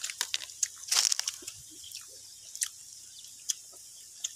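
Someone eating close to the microphone: crunching and chewing, with a quick cluster of sharp clicks about a second in and scattered clicks after.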